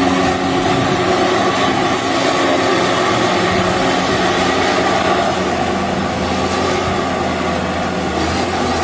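An excavator's diesel engine running steadily, a constant drone with a low hum.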